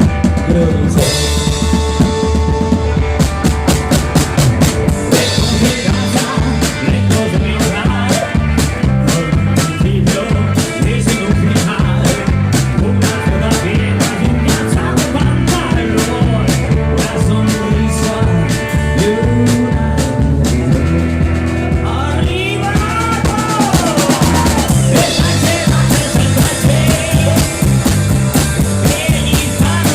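Live rock band playing an instrumental passage: drum kit keeping a steady beat under bass and guitar, with a melodic lead line sliding in pitch after about twenty seconds.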